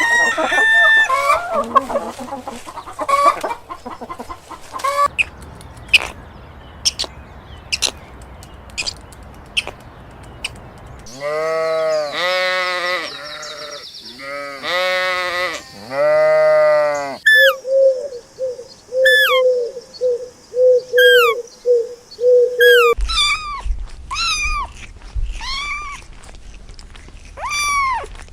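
A run of farm animal sounds. Hens cluck for the first few seconds, then come scattered sharp taps. About 11 seconds in there are several long, wavering bleats, and from about 17 seconds on birds give short repeated chirps over a faster, lower call.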